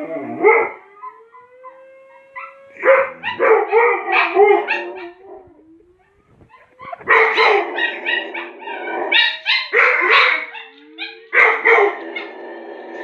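Dogs barking and howling in loud bursts, set off by a recorded Dutch air raid siren, with a pause about five to six seconds in.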